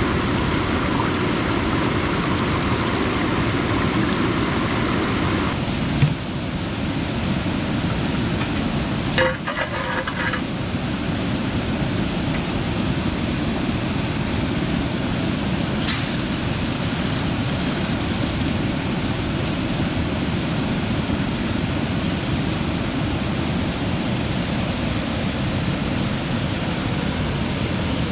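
Steady rushing of a river and waterfall, a loud even wash of water noise. A short run of clinks comes about nine seconds in, and there is a single knock shortly before it.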